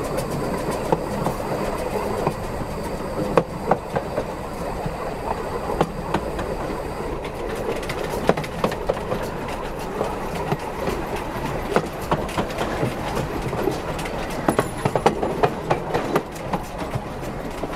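Narrow-gauge steam locomotive Spreewald rolling slowly along the track: a steady rolling rumble with irregular clicks and knocks from the wheels over rail joints. A quicker run of clicks near the end comes as it crosses a set of points.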